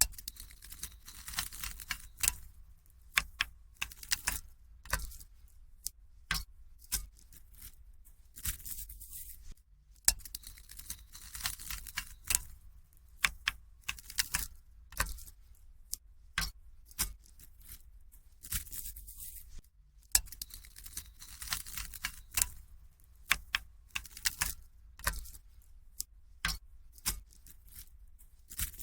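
Metal paperclips clicking and jingling in sharp, irregular clicks, alternating with soft scratchy brushing strokes across a microphone.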